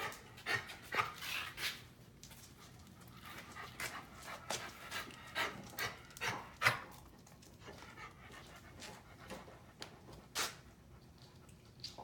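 Dog coughing in a series of short, irregular hacks, loudest about a second in and again around six and a half seconds. The owner is treating the cough as an infection with the antibiotic Clavamox.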